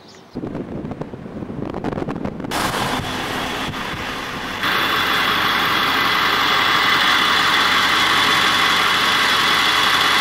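Steady machine noise: a motor running, a constant hiss with a faint whine. It comes in abrupt steps, growing louder twice before holding steady.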